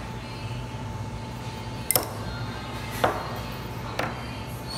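Three sharp taps about a second apart as the hand grinder's small metal parts and a wooden-handled cleaning brush are handled and set down on a tabletop, over a steady low background hum.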